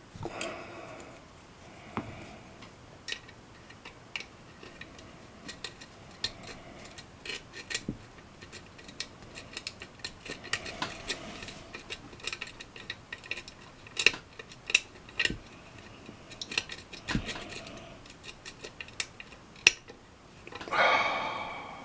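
Small irregular metallic clicks and scrapes of a steel lock pick working the pins of a six-pin lock cylinder under tension from a tension wrench, with a handful of sharper ticks among fainter ones.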